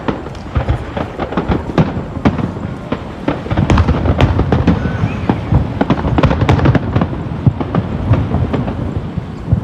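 A fireworks display: rapid crackling and popping of bursting shells, thickening into a dense run of deeper booms for a few seconds in the middle.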